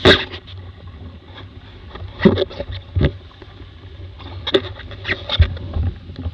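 Strong wind buffeting the microphone in a steady low rumble, broken by irregular sharp splashes as spray and chop slap against a Laser dinghy's hull while it sails fast in a blow. The loudest splashes come at the very start and about two seconds in.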